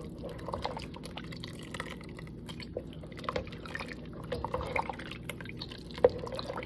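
Liquid sounds of soup with vegetables in a pot, dripping and splashing, with scattered small clicks and one sharp clink about six seconds in.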